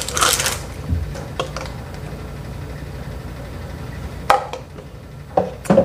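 A few sharp clicks and knocks of a stirrer against a plastic cup as a drink is stirred, over a low steady hum. The loudest click comes just past four seconds in, and two more follow near the end.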